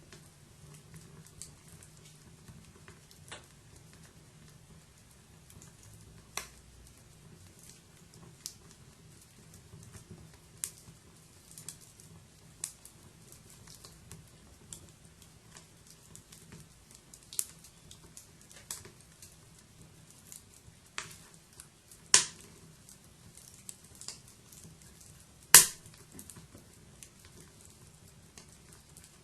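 Wood fire crackling: irregular sharp snaps and pops over a faint steady low hiss, with two much louder pops in the second half.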